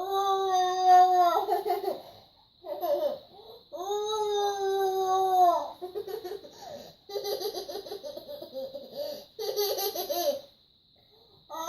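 A young child's high voice: two long held squealing notes, then a run of quick, choppy laughter.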